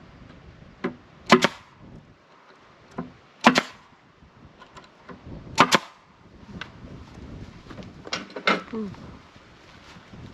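Nails being driven into a wooden box: a sharp crack about every two seconds, several of them with a lighter tap just before.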